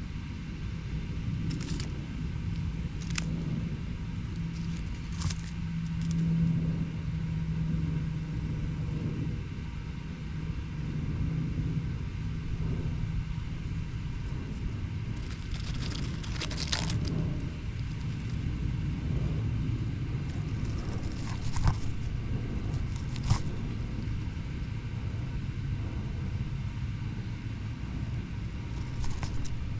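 Urban outdoor ambience: a steady low rumble of road traffic, with a low engine-like hum through the first twelve seconds or so. A few short scattered clicks and rustles sound over it.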